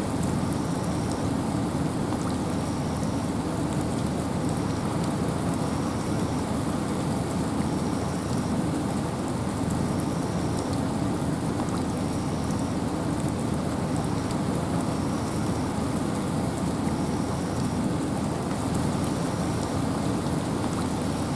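Steady rain and wind in a forest: an unbroken hiss of rain with a heavy low rumble underneath. A faint, short high chirp repeats about once a second.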